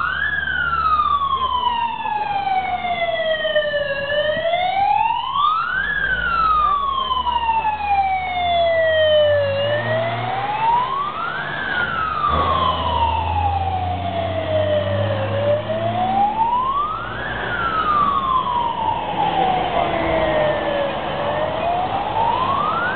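Siren of a Star 244 fire truck on an emergency run, wailing in cycles that rise quickly and fall slowly, about every six seconds. The truck's engine rumble swells as it passes in the middle.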